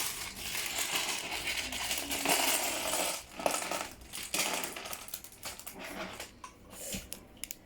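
Small plastic LEGO pieces clattering and clicking against each other as they are handled and rummaged through. The clatter is busy at first and thins to scattered clicks after about four seconds.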